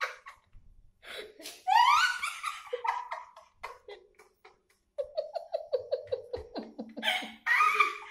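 A person laughing in bursts: a rising peal about two seconds in, then a long run of rhythmic 'ha-ha' pulses, about six a second and falling in pitch, from about five seconds in, and a last burst near the end.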